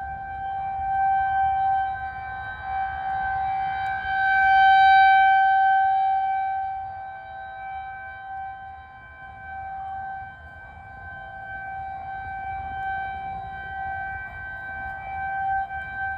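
Warning siren sounding during a siren test, holding one steady tone that swells loudest about four to six seconds in and then fades back.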